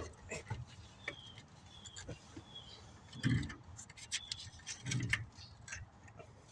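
Scattered clicks, knocks and a couple of dull clunks of tools and metal as the brake booster is worked loose from a 1998 Chevy Suburban's firewall. Short high chirps from a bird come several times in the first few seconds.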